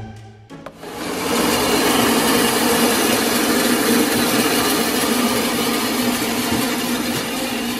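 Band saw running steadily: a constant even machine noise that starts about a second in.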